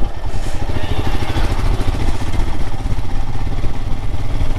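Royal Enfield Himalayan motorcycle on the move, its single-cylinder engine running under a heavy, fluttering wind rumble on the rider's microphone.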